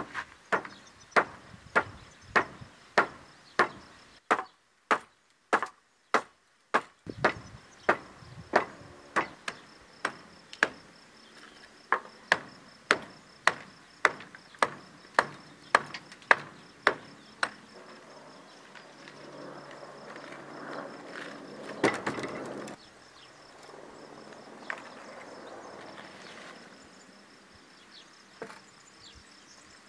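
Hammer blows on old wooden roof battens as they are knocked loose, a steady run of sharp knocks about two a second that stops about 17 seconds in. A few seconds of rougher noise with one more knock follow, and an insect's faint steady high chirr runs underneath.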